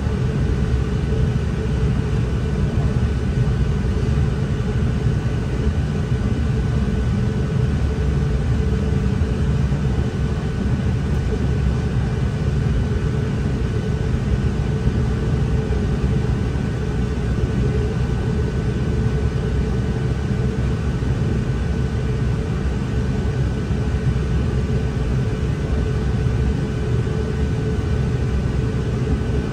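NI Railways Class 3000 (CAF C3K) diesel multiple unit running between stations, heard from inside the train: a steady rumble of the engine and wheels on the track, with a faint steady whine over it.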